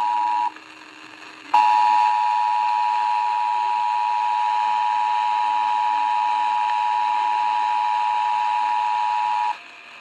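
Emergency Alert System two-tone attention signal, a steady pair of pitches just under 1 kHz, played through an emergency radio's speaker during a monthly test. It breaks off about half a second in, starts again a second later, holds for about eight seconds, and stops shortly before the end.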